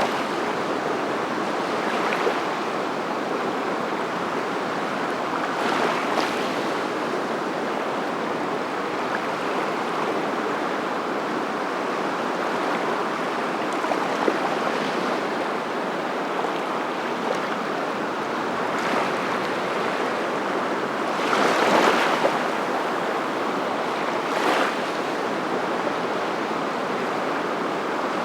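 Steady rushing noise of surf, rising briefly louder a few times, most strongly a little past three-quarters of the way through.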